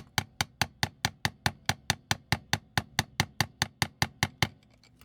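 Small hammer tapping rapidly and evenly, about four to five light taps a second, to drive a stubborn pin out of a vintage Transformers toy. The tapping stops shortly before the end.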